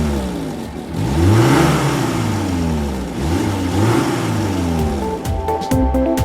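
Ice cream van engine sound effect, revving up and easing off in repeated rises and falls of pitch. Electronic background music with a beat comes in about five seconds in.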